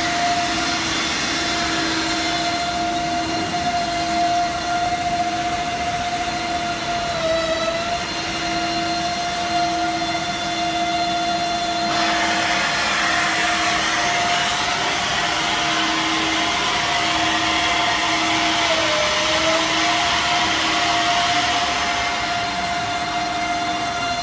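Electric high-speed floor polisher (C8) running steadily on wet concrete, its motor giving a loud, even whine with a rushing hiss. The whine sags briefly in pitch twice as the machine is moved and loaded, and the hiss grows louder about halfway through.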